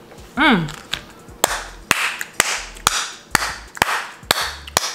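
A woman's falling, closed-mouth "mmm" of enjoyment, then about eight hand claps, roughly two a second.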